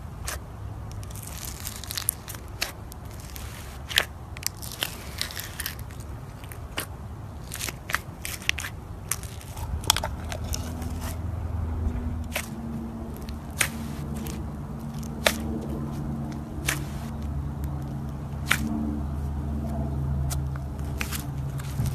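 Slime being squeezed and pressed by hand, giving irregular sharp crackling pops and clicks.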